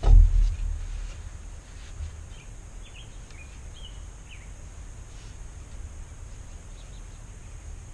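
A dull low thump right at the start, then the quiet handling sounds of lashing cord being wrapped and pulled around a wooden kayak frame joint over a steady low rumble. A few short bird chirps come in the middle.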